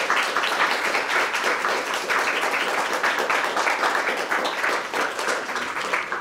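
Audience applauding: many hands clapping in a dense, even patter that dies away near the end.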